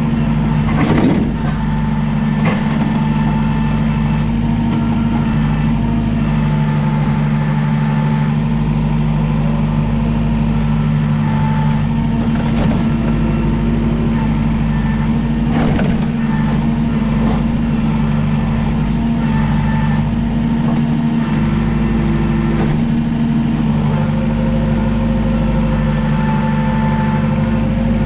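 Heavy vehicle engine running steadily, with a clunk about a second in and another about halfway through.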